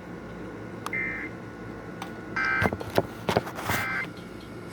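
NOAA Weather Radio EAS end-of-message data bursts: three short, harsh two-tone digital warbles about 1.4 seconds apart, signalling that the alert broadcast has ended. Static crackles and clicks come between the second and third burst.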